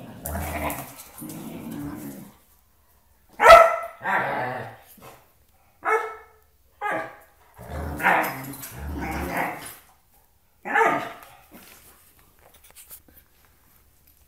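A Doberman and a brindle puppy in rough play: a run of growls and sharp barks, the loudest bark about three and a half seconds in.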